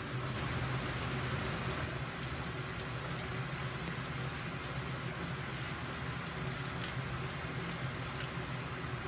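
Steady rushing water noise with a faint low hum underneath.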